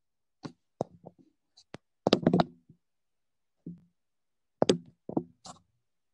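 Scattered short knocks and taps, a few light ones at first, a louder cluster about two seconds in, and another cluster near the end.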